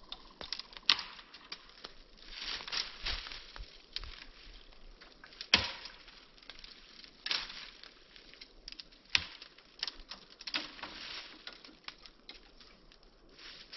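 Irregular crackling and sharp snaps, with a few louder pops about a second in and near the middle.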